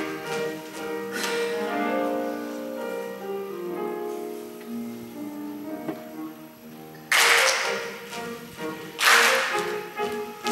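Instrumental music playing a slow melody of held notes. About seven seconds in, and again about two seconds later, loud hissing bursts of under a second each break over it.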